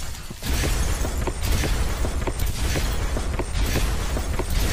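Countdown-intro sound effects: a strong low rumble under crashing, shattering-glass noise, with sharp ticks about three times a second.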